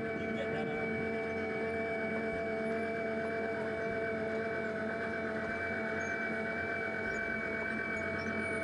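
Continuous miner tramming at constant speed on its AC traction motors under variable-frequency-drive control, giving a steady whine of several held tones over a low mechanical rumble.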